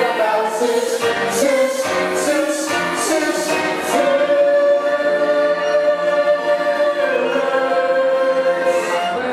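A chorus of children singing together in a school musical, with one long note held for about three seconds in the middle before the melody drops.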